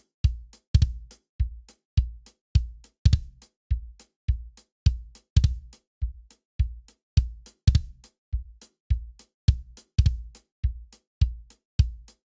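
Kick drum pattern from a drum loop, about three deep kicks a second, each with a sharp click on top, and a louder accented hit roughly every two seconds.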